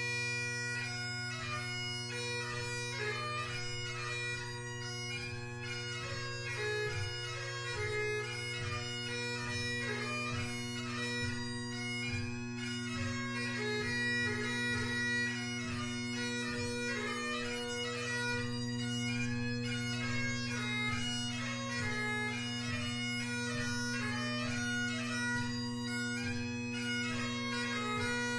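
Great Highland bagpipe playing a tune. Steady bass and tenor drones sound under a quick, heavily ornamented chanter melody. The pipes have McCallum drones and a blackwood chanter.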